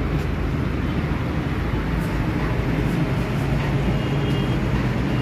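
A steady low mechanical rumble of a running engine, even in level throughout.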